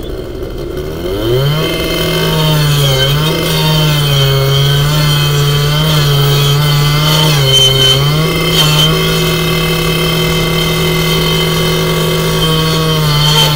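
Gasoline power saw, a two-stroke firefighting saw, running at high revs, its pitch dipping and recovering repeatedly as it bites into the material being cut.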